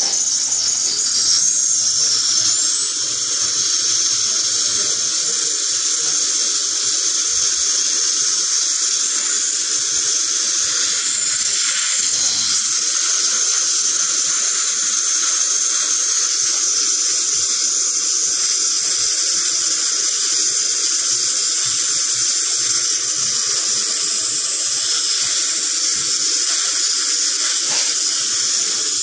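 High-speed dental drill (handpiece) whining steadily in the mouth during a cavity filling, with the hiss of the suction tube underneath. The whine dips briefly about twelve seconds in, then carries on.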